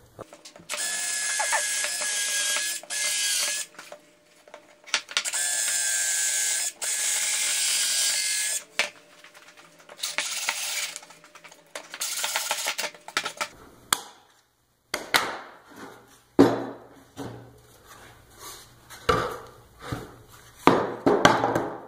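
A handheld power tool cutting into a pine board in four runs of one to four seconds each, a steady high-pitched whine with a sharp start and stop to each run. Then scattered knocks and clatters of the wooden boards being handled on the workbench.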